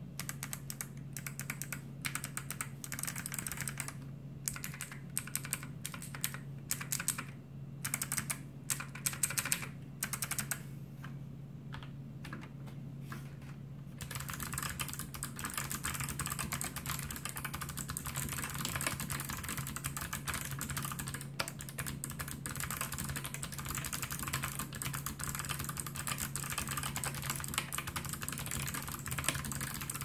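Kailh Box White clicky mechanical keyboard switches, with their click-bar mechanism, being pressed on an unbuilt test board. First come separate key presses with short pauses, then from about halfway through, fast continuous typing.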